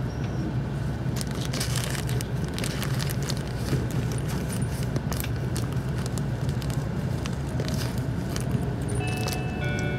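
Interior running noise of an E351-series Super Azusa limited express pulling out of the station: a steady low rumble with scattered clicks and knocks from the wheels. About nine seconds in, an electronic chime of a few held notes starts, the signal that an on-board announcement is coming.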